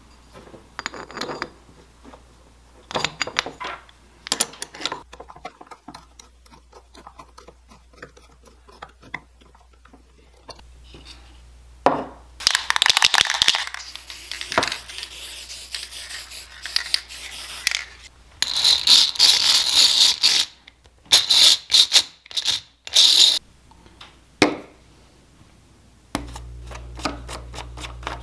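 Metal parts of a hand drill clicking and clinking as the gear wheel is fitted back on. Then an aerosol spray can hisses onto the drill's gears in several bursts: two long ones and a few short ones after.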